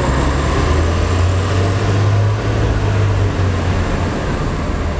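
A vehicle engine running nearby: a steady low hum, strongest in the middle seconds, over street noise.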